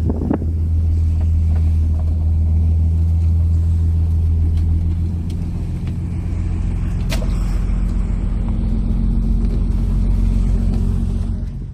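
Fishing boat's engine running steadily, a loud low drone, with a single sharp click about seven seconds in; the sound cuts off abruptly at the very end.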